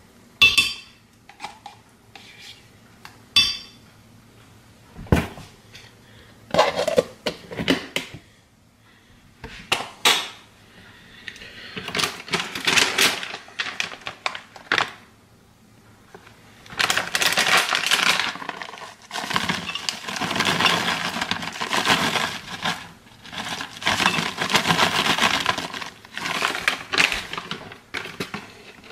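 A metal spoon scraping and tapping yogurt out of a plastic tub into a glass blender jar, with several sharp ringing clinks. From about halfway through, long stretches of a plastic bag crinkling and rustling as it is handled.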